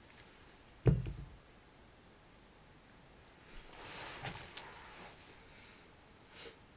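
A single dull thump about a second in, then rustling with a couple of light clicks as backpacks and clothes are handled while packing.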